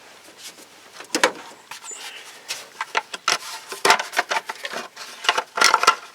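Irregular clicks, knocks and rattles of hand tools and hard plastic parts being handled while working on the 4.9-litre straight-six Ford engine, sparse at first and busier from about halfway.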